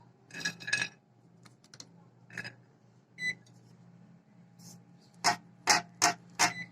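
Light clinks and knocks of kitchen utensils and a cake tin, with short electronic beeps from a microwave oven signalling that preheating is done. A quick run of sharp clicks follows near the end.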